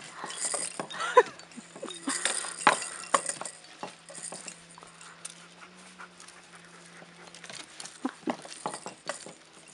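Czechoslovakian wolfdog puppies playing with a baby play arch: irregular clicks, clacks and knocks as they nose, bite and tug its hanging plastic toys.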